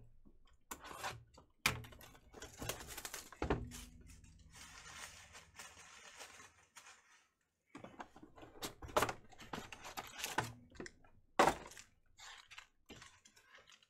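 Cardboard trading-card box being handled and opened: knocks and thumps, a few seconds of tearing and crinkling wrapper in the first half, then foil card packs clicking and rustling as they are pulled out and handled.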